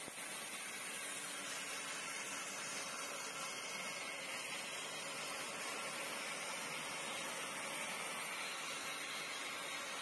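Old bandsaw blade cutting through a big dry log, a steady, even hiss of the saw in the wood with no let-up.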